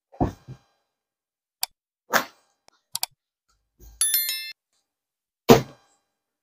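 A short electronic bell chime about four seconds in, a subscribe-button sound effect, preceded by a couple of sharp clicks. Dull thumps of things being handled on a bed come three times, the last one the loudest.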